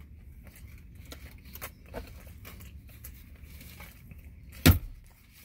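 Chewing a big mouthful of burger, with small crinkles and clicks from the paper wrapper, and one sharp knock near the end.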